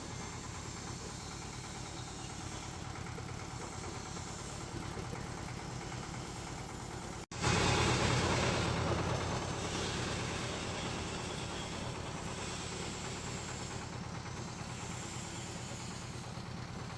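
Floating fish-feed pellet extruder running steadily with a fast low chugging pulse. About seven seconds in, the sound breaks off for an instant, then comes back louder and hissier and eases back down over the next few seconds.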